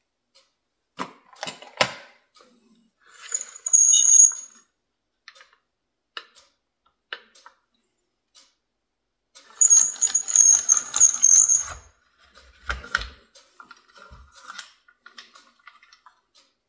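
Metal parts of a Mitutoyo height gauge's slider assembly handled and taken apart by hand: scattered clicks and taps, a short scrape with a thin high squeal about four seconds in, and a longer scraping, squealing spell from about ten to twelve seconds, followed by a dull knock.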